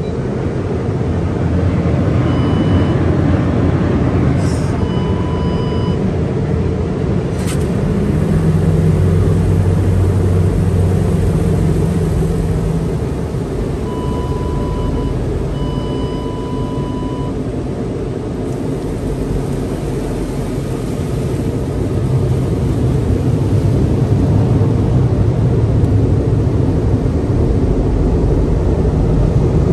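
Water jets spraying and sheeting over a car in an automated tunnel car wash, heard from inside the cabin as a steady heavy rush with a low rumble. It grows louder over the last several seconds.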